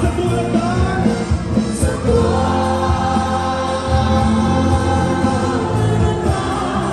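A large congregation sings a gospel worship song together, led by a singer on a microphone over amplified music. The notes are long and held, with a steady heavy bass beneath.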